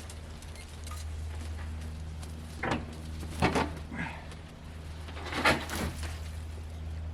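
An engine running steadily with a low hum, with a few short clusters of knocks and clatters about a third of the way in and again past the middle.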